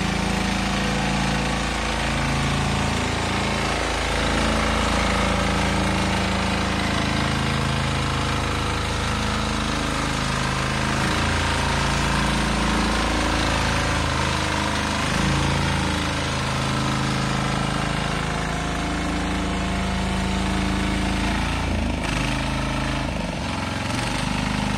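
Engine of a ride-on four-wheel mini power weeder running steadily under load while its rotary tines till loose soil.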